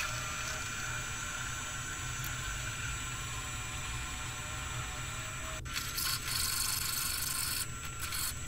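Drill press running, its twist bit boring into a mild steel pommel blank: a steady motor whine with the grind of the cutting. About six seconds in it turns rougher and louder as the bit goes deeper.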